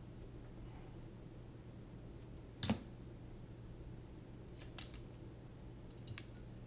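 Scissors trimming the corners off a small pad, with one sharp click about two and a half seconds in and a few lighter clicks after.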